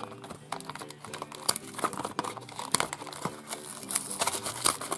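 Packaging crinkling and tearing as a small surprise toy box is opened by hand, with irregular sharp crackles throughout.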